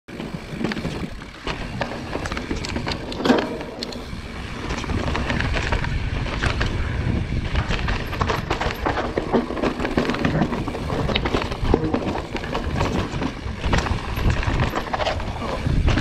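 Marin Alpine Trail XR mountain bike ridden down a bike-park trail: a steady rumble of tyres over the ground, with frequent irregular rattles and clacks from the bike.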